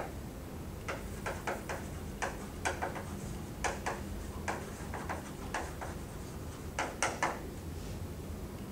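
Chalk writing on a blackboard: irregular short clicks and taps, several a second, as the letters are struck out, over a low steady room hum.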